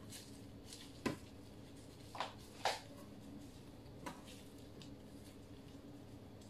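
Gloved hands tying the legs of a raw whole chicken with string on a metal tray: a few short knocks and squishes of handling, about four in all, the loudest near the middle, over a steady low hum.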